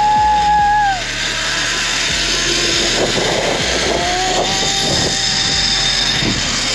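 Steady rush of wind on the microphone during a zip-line descent. A held whine falls away about a second in, and a fainter whine comes back for a couple of seconds past the middle.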